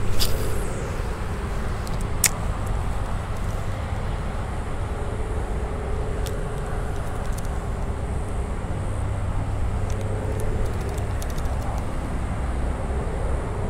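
Steady low outdoor rumble with a faint, even hum of a distant engine, and a single sharp click about two seconds in.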